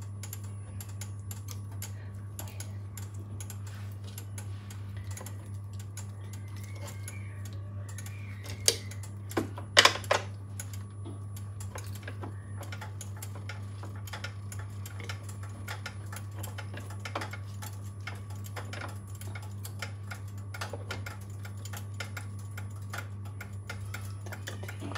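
Pork pieces sizzling on a hot electric grill plate, a dense crackle of small pops, over a steady low hum. A few sharper knocks about nine to ten seconds in as the meat is turned with a fork.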